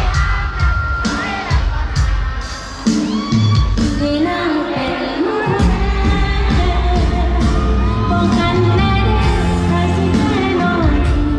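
Pop music with a singer's voice over a heavy bass beat and drum hits.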